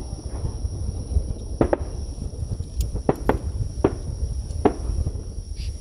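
Aerial firework shells of a starmine barrage bursting at a distance: a run of about seven sharp bangs at uneven intervals, starting about a second and a half in, over a steady low rumble.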